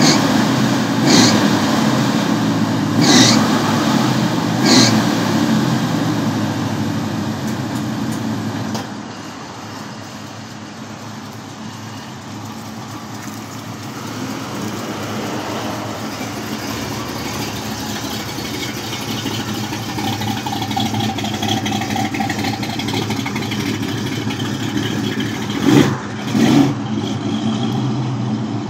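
1966 Chevrolet Impala's engine running, with three short throttle blips in the first five seconds. It then settles quieter and builds again as the car moves off, with two short sharp sounds near the end.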